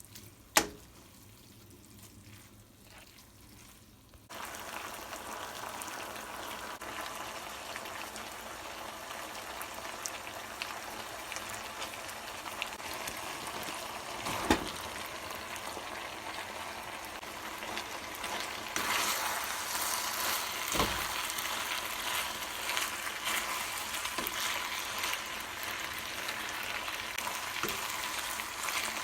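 Food sizzling as it fries in a hot pan, starting suddenly about four seconds in and growing a little louder later on. Two short knocks sound over the sizzle.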